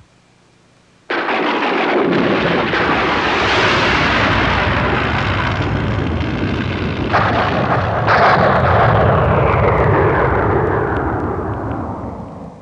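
Thunder sound effect: a sudden crack about a second in opens into a long rolling rumble, with two more cracks around seven and eight seconds, before it dies away near the end.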